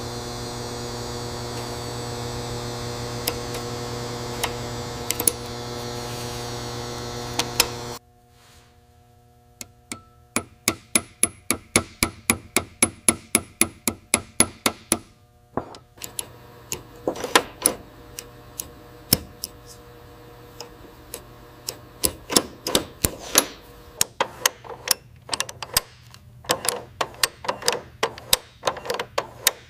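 A steady hum with a few small clicks, which cuts off suddenly, then a long run of light, sharp metallic taps. The taps come about three a second at first, then irregularly: a small hammer tapping a pin into a steel part.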